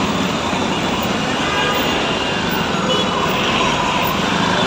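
Heavy city street traffic, with buses and cycle rickshaws close by: steady engine and road noise, with a couple of short horn toots about two and three seconds in.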